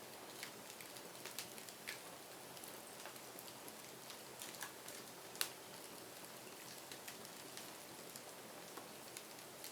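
Wood fire crackling: irregular sharp pops and snaps over a soft steady hiss, with one louder pop a little past halfway.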